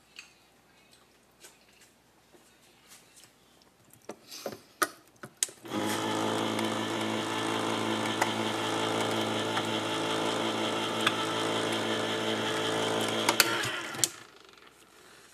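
Electric can opener: a few clicks as the can is set against the cutter and the lever pressed, then its small motor runs steadily for about eight seconds while it turns the tin can and cuts the lid, stopping abruptly near the end.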